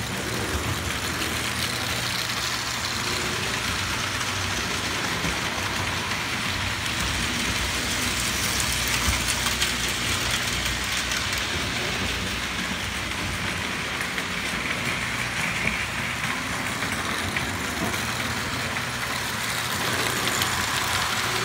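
Prewar Lionel O gauge tinplate trains running on three-rail track: a steady metallic clatter of wheels on the rails with a low motor hum underneath.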